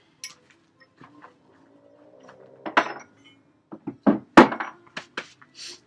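Iron parts of an old blacksmith's leg vise knocking and clinking together as they are handled, a few sharp metal knocks, the loudest about three and four seconds in.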